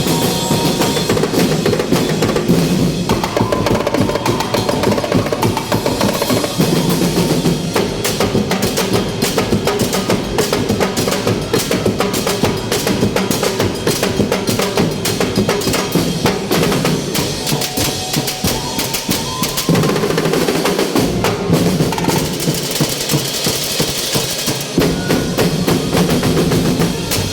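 A drum ensemble playing without a break: rapid snare-drum rolls over bass-drum beats, many drums struck together.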